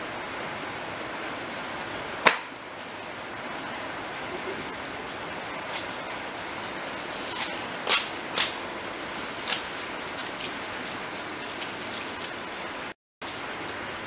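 Steady hiss of falling rain, with a sharp knock about two seconds in and a few lighter clicks around eight to nine and a half seconds in.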